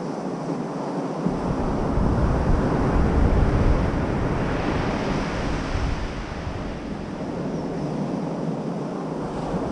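Ocean surf breaking and washing up a sandy beach, a steady hiss that swells about halfway through as a wave runs up. Wind buffets the microphone with a low rumble from about a second in.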